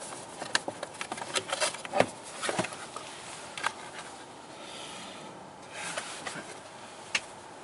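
Clicking and knocking of a 2017 Toyota RAV4's plastic lower dash trim panel as it is pulled away from below the steering column. There is a quick run of taps and clicks, with one sharper knock about two seconds in, and a single click near the end.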